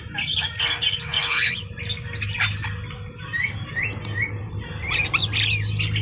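Javan myna (jalak kebo) calling vigorously: harsh, rasping squawks mixed with short rising whistles, with the harsh calls loudest in the first two seconds and again about five seconds in.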